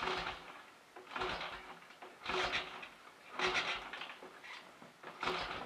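1930 Royal Enfield Model K 1000 cc V-twin being kicked over five times, about once a second, without firing: each kick gives a short thump and a rush of air through the engine, and it never catches. The owner suspects the ignition timing is wrong, even on full retard.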